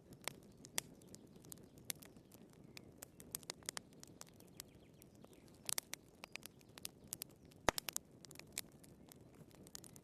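Wood fire crackling in a fireplace: irregular sharp pops and snaps over a low steady hiss of burning, with a quick cluster of pops about six seconds in and one louder crack a little before eight seconds.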